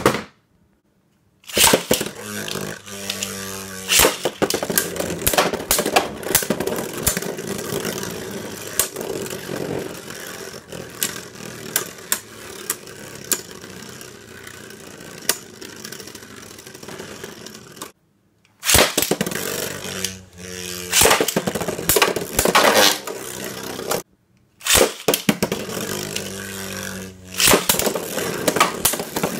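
Beyblade Burst spinning tops, Blizzard-X Gaianon G4 and Kerbeus K4, launched and battling in a plastic stadium: a steady scraping whir of the spinning tops with many sharp clacks as they collide. The sound cuts out completely twice, about 18 and 24 seconds in, between battles.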